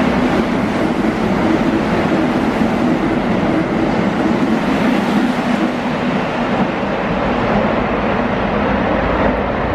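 Keihan 3000 series electric train running through a station at speed: a loud, steady rush of wheels on rail and air, with a steady hum under it.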